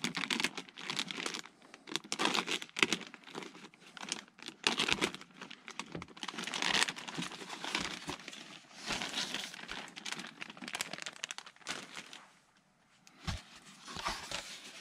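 Thin plastic packaging bag crinkling and tearing as it is cut open with a hobby knife and a foam wing panel is pulled out of it. The rustling comes in irregular bursts, goes quiet briefly near the end, and a few soft knocks follow as the panel is handled.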